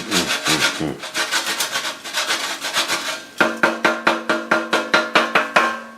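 Parmesan cheese grated by hand on a metal grater: rapid rasping strokes, about four or five a second in the second half, over a steady tone.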